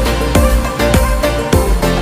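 Background music with a steady beat and bass.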